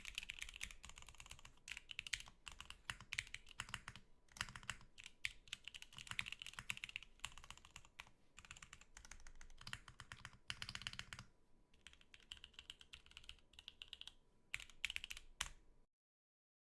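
Typing test on an Etar87 mechanical keyboard: keystrokes in quick, dense runs with a few short pauses. The sound cuts off abruptly near the end.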